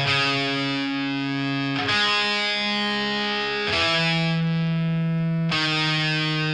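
Distorted electric guitar playing sustained chords in a rock song intro. Each chord rings for about two seconds before the next is struck, with no drums.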